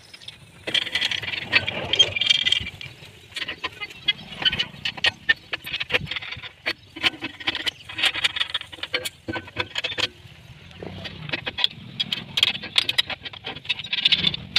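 Irregular metal clinks and knocks as steel blades and bolts are handled and fitted onto a mini-tractor cultivator frame with a spanner, with steady chirping calls of small animals behind.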